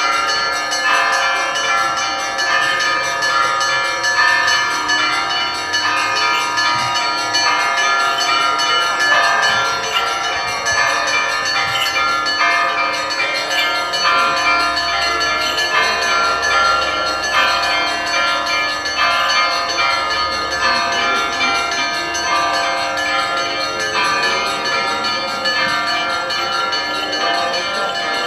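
Orthodox church bells ringing a continuous peal, many bells struck in overlapping, unbroken rhythm.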